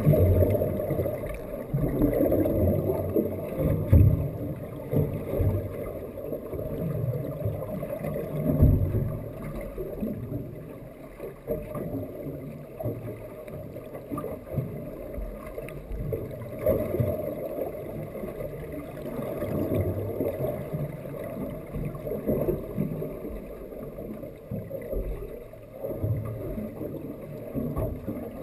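Muffled underwater sound heard through a sealed camera housing: irregular low rumbling and sloshing of water moving against the case, with a few louder thumps.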